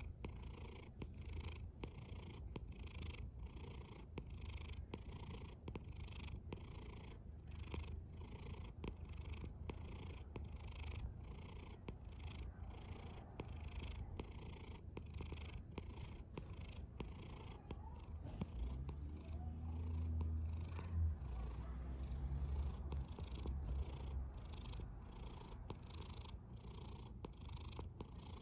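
Sleeping cat purring and snoring: a steady low rumble under a rhythmic breathy hiss, a little faster than once a second. The rumble swells louder for a few seconds about two-thirds of the way through.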